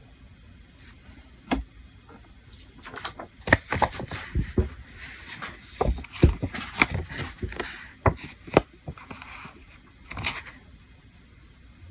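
A run of small sharp clicks and taps with brief rustling, from about a second and a half in until near the end, as small items are handled and set down on a hard surface.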